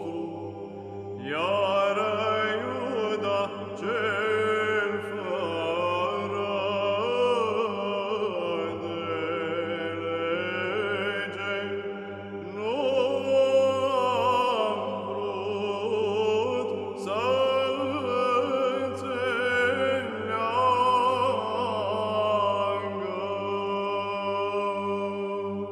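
Slow sung chant by male voices over a steady low held drone, in the manner of Orthodox church chant, with phrases rising and falling and new phrases beginning about a second in and again about halfway.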